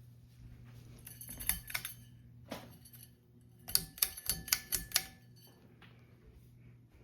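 Ceiling fan humming steadily, with two bursts of quick, light clicks and ringing taps: one about a second in, and a denser run of five or six around the fourth second.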